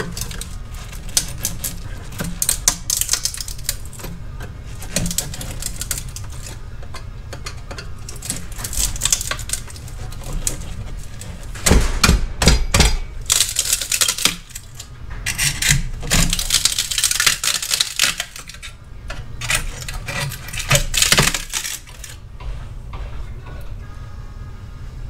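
A screwdriver prying and scraping at the cut steel shell of a motorcycle exhaust's catalytic converter. Metal clicks and scratches in irregular bursts, with a few heavy knocks about twelve seconds in.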